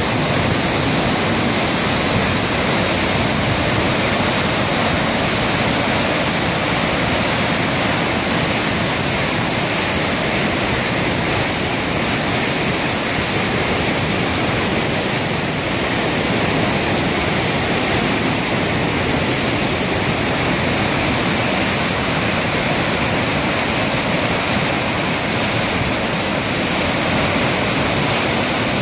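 South Esk River in flood rushing through the rocky rapids of Cataract Gorge: a loud, steady rush of churning whitewater.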